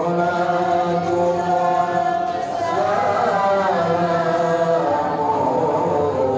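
A group of voices chanting together in long, held, melodic lines: Arabic devotional chanting at a wedding contract ceremony.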